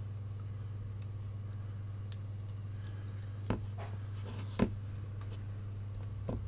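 Small sharp clicks and taps as a circuit board with a newly fitted capacitor is handled and turned over, two of them about three and a half and four and a half seconds in, the second the loudest, and a smaller one near the end, over a steady low hum.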